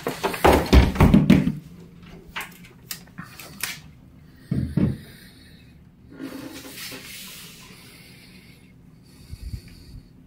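An old wooden door scraping and rubbing as it is pushed open, followed by a few knocks and bumps of handling.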